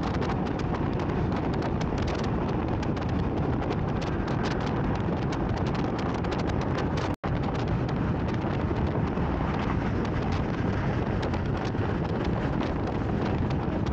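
Strong wind buffeting the microphone, a loud rough rush with irregular gusty spikes, broken by a momentary dropout about halfway through.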